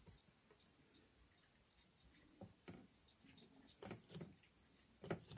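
Near silence with faint licking and fur rustling from a Norwegian Forest Cat grooming another cat: a few soft clicks, the loudest about four and five seconds in.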